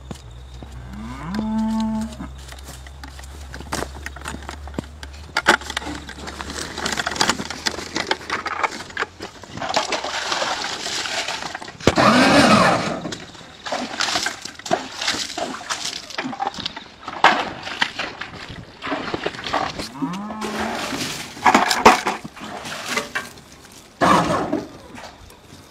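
Cattle mooing four times, calls that bend in pitch, the strongest about halfway through. Between the calls there are scraping noises and sharp knocks.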